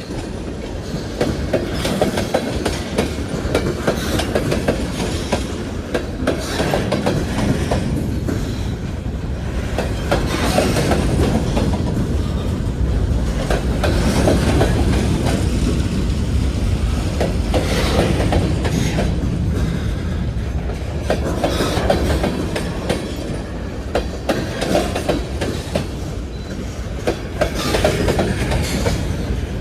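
Freight train cars rolling past at close range: a steady rumble with the clickety-clack of wheels going over rail joints.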